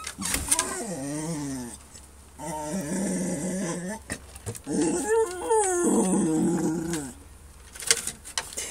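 Dog whining and grumbling in three long, drawn-out vocalizations whose pitch bends up and down, the sound of a dog worked up and wanting to play. A couple of sharp knocks near the end.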